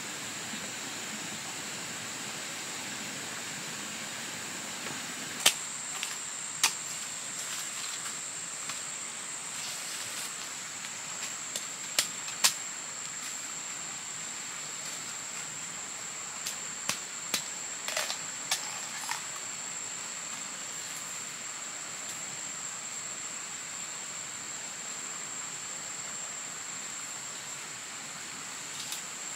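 Scattered sharp snaps and crackles of dry twigs and leaf litter, about nine in all, clustered in the middle of the stretch, as someone moves on foot through bamboo undergrowth. Behind them runs a steady high-pitched insect drone.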